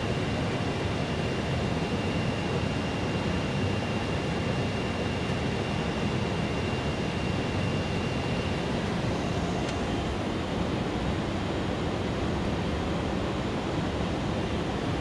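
Steady rushing cockpit noise of an MD-11 airliner in flight on approach, with a faint high steady whine that stops a little past halfway through.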